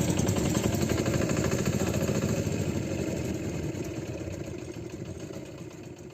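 Motorcycle-type engine of a sanedo, a home-built jugaad farm machine, running with a rapid even beat and fading steadily away.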